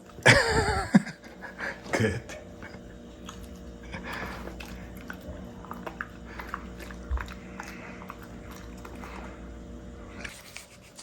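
Shiba Inus chewing and crunching treats, with many small clicks, after a short voice falling in pitch at the start.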